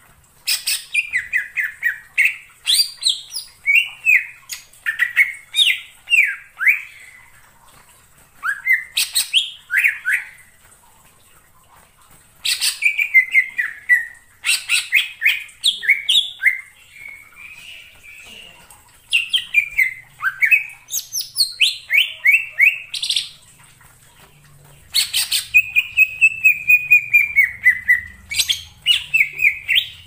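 Green leafbird (cucak ijo) singing in phrases of rapid, sweeping whistled notes. Each phrase lasts a second or three, with short pauses between, and a long falling run comes near the end.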